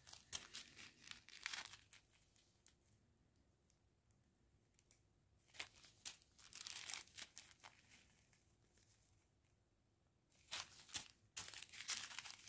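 Small plastic zip bags of square diamond painting drills crinkling as they are handled, in three short spells of rustling with quiet between.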